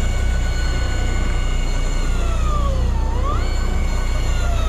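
Electric deep-drop fishing reel winding a hooked fish up, its motor whining steadily, dipping in pitch about three seconds in and then rising again. Under it runs a steady low rumble.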